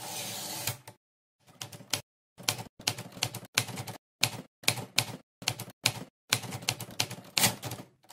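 Typewriter keys striking in quick, uneven runs of clicks, after a short rush of noise at the very start.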